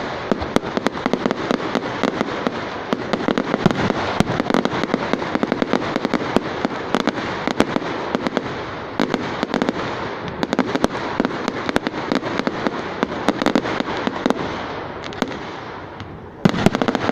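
Fireworks display with a dense, continuous crackle of rapid pops and bangs. It fades slightly, then a sudden loud burst comes near the end.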